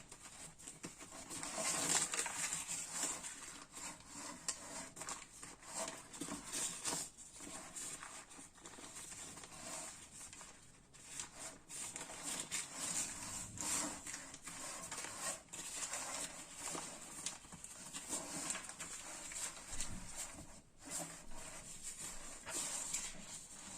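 Kitchen food-preparation handling sounds: irregular light taps, clicks and rustles, with the loudest stretch about two seconds in.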